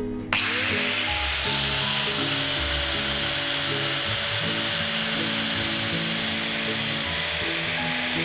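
Electric power tool switched on about a third of a second in, spinning up quickly and then running steadily at full speed with a loud whirring hiss, driving a velcro sanding backing pad. Background music plays underneath.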